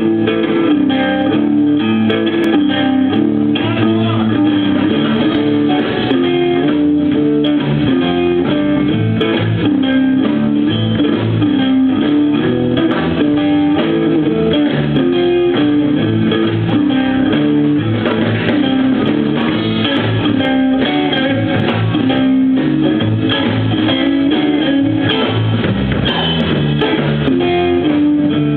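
Live blues played by a small band: electric guitar with bass guitar under it, loud and continuous.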